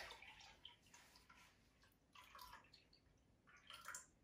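Faint trickle of liquid poured from one glass into a tall glass of water, coming in a few short spells: near the start, about two seconds in, and near the end.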